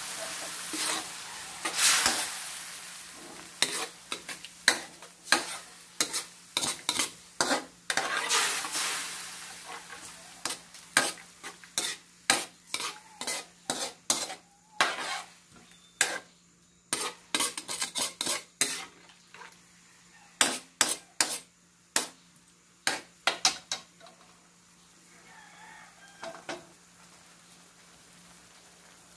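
Metal spatula stirring and scraping in a metal wok, with many sharp clinks of metal on metal, over sauce sizzling. The sizzle fades over the first ten seconds or so, and the clinking stops about three quarters of the way through.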